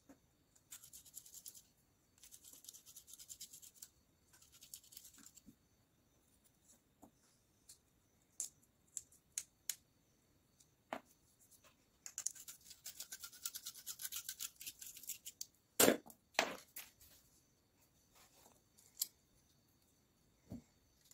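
Bursts of fine, rapid metallic scraping and a scatter of sharp clicks and taps as a small toothed cutting disc is handled and fitted onto its mandrel by hand. The two loudest taps come about two-thirds of the way through.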